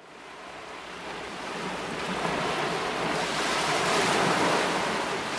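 Rushing wind-and-wave noise at the seashore, fading in over the first few seconds and then holding steady with a slight swell.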